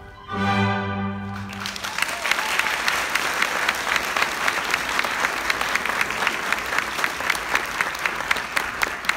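Orchestral music with bowed strings ends on a held chord about a second and a half in, then an audience applauds, with many sharp individual claps standing out.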